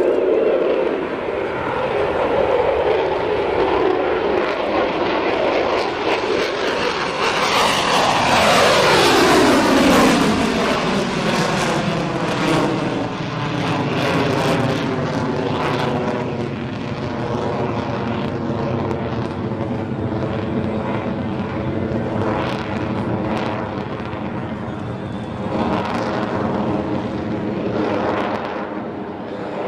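F-22 Raptor's twin Pratt & Whitney F119 turbofan engines running at high power as the jet flies past, with a sharp drop in pitch around eight seconds in as it goes by. The jet noise then carries on at a steady high level with a hollow, sweeping tone as the aircraft climbs and turns away.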